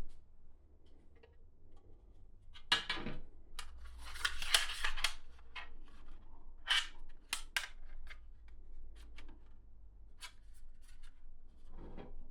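Hands handling small objects: scattered clicks and bursts of rustling, the loudest a few seconds in.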